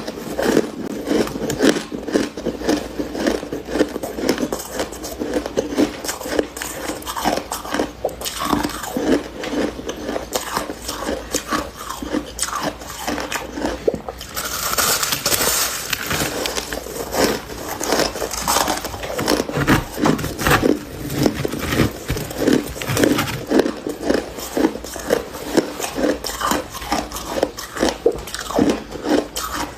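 A person biting and chewing a soft chunk of freezer frost, close to the microphone: a steady run of crisp, crunchy chews throughout.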